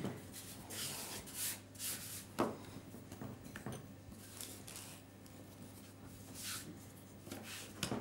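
Quiet handling noises of hands working sugar paste on the worktop: soft rubbing and rustling, with a light tap about two and a half seconds in, over a low steady hum.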